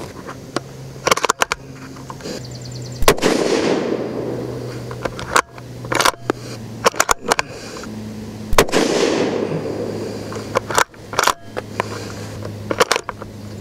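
Two rifle shots from a .223 Remington Ruger American Predator Gen 2 with a radial muzzle brake, about five and a half seconds apart, each followed by a long fading echo. Smaller sharp clicks come between the shots.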